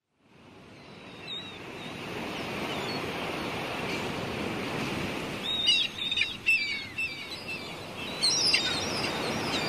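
Small birds chirping in short, quick falling calls over a steady wash of gentle surf, which fades in at the start. The calls come singly early on, then in busier clusters about halfway through and again near the end.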